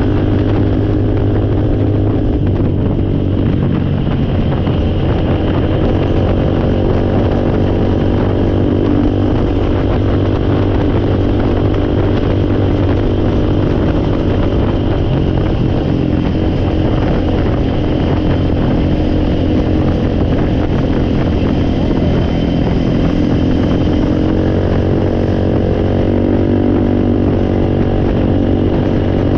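Four-wheeler (ATV) engine running steadily, its pitch shifting slightly now and then.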